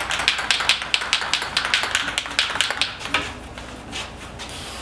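Aerosol can of shellac being shaken, its mixing ball rattling in fast, even clicks of about seven or eight a second. The rattling slows and stops, and a steady spray hiss begins near the end.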